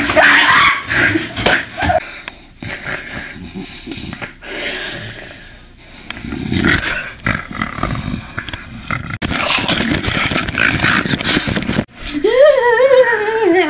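Rough, animal-like growling and snarling noises, ending in a high, wavering howl-like cry near the end.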